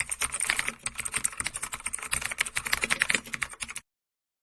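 Rapid typing on a computer keyboard, a dense patter of key clicks that cuts off suddenly near the end, followed by dead silence.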